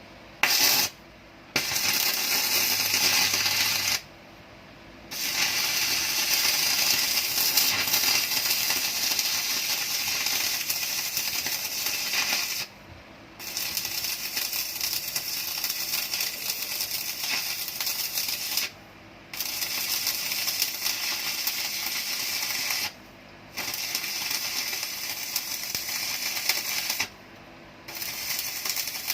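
Arc welding with the modified Muller inverter welder: the arc crackles and sizzles in runs of several seconds. It stops briefly about six times as the arc is broken and struck again.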